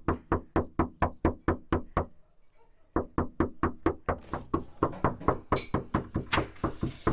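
Knuckles knocking rapidly on a door, about four knocks a second. The knocking stops for about a second near the middle, then goes on, growing fainter toward the end.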